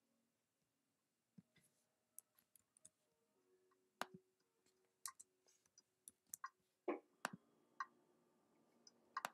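Faint, irregular computer mouse clicks, a dozen or so spread unevenly, over near-silent room tone.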